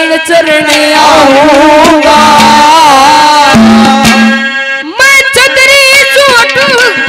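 Haryanvi ragni folk singing: a young man's voice over a loud PA, with hand-drum and melodic accompaniment. The line breaks off briefly about four and a half seconds in and a new phrase begins with a rising glide.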